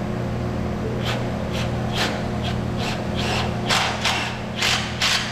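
A run of about ten sharp knocks or taps, irregularly spaced and growing stronger toward the end, over a steady low machine hum.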